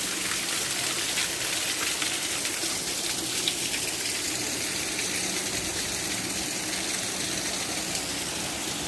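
Steady rushing and splashing of a waterfall.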